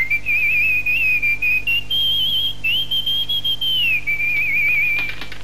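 A person whistling a tune: one clear, slightly wavering line of melody that steps higher about two seconds in and slides back down about four seconds in, then stops just before the end.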